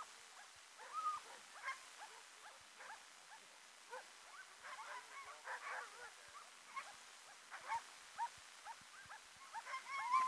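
Many Alaskan husky sled dogs yipping, whining and barking together in short overlapping calls. The calls come thickest around five seconds in and again near the end.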